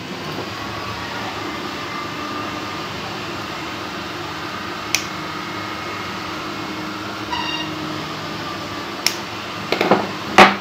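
Nail nippers snapping through a thick, crumbly toenail, making sharp clicks: single ones about halfway and shortly before the end, then a quick run of louder snips at the very end. A steady background hum runs underneath.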